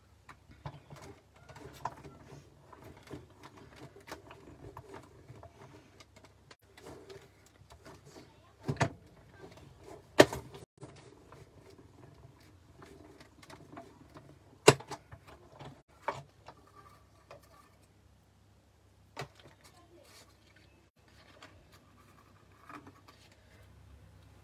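A hand-cranked Big Shot die-cutting machine in use: a steady run of clicks, rattles and scraping as cutting plates and small metal dies are handled and wound through the rollers. There are a few sharp knocks of plates being set down, loudest around ten seconds and fifteen seconds in.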